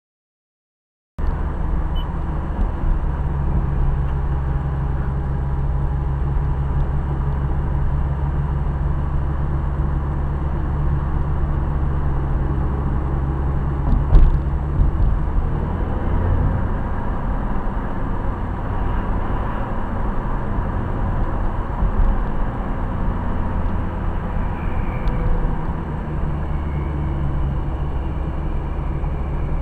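Car driving, heard from inside the cabin: a steady low engine hum and tyre rumble that cuts in about a second in, with a single sharp knock about halfway through.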